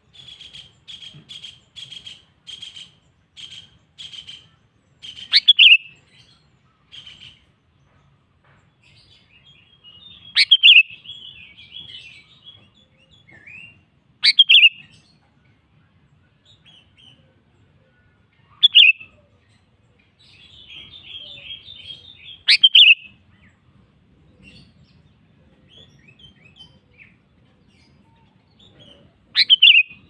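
Sooty-headed bulbul (kutilang) singing: a run of short notes repeated about twice a second, then loud, sharp calls every four to five seconds with bursts of chattering in between.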